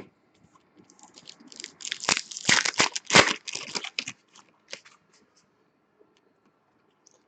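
A foil card pack wrapper being torn open and crinkled: a run of crackling rips starting about a second in, loudest between two and three seconds, then a few small rustles.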